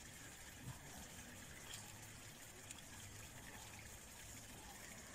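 Faint scuffing and rustling of gloved hands pressing garden soil around an artichoke seedling, with a few soft ticks, over a quiet steady hiss.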